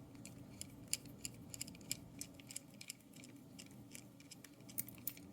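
Faint, irregular small clicks and ticks as a screw is driven in to hold the core down in an Abus 72/40 padlock during reassembly.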